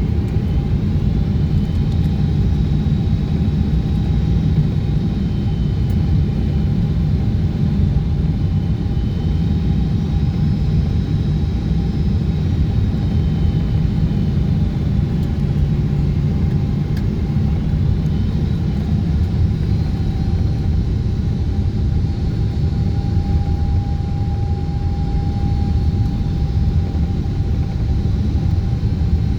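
Steady, loud cabin rumble of a Boeing 777-200ER airliner during its descent: engine and airflow noise heard inside the cabin, with a faint steady whine.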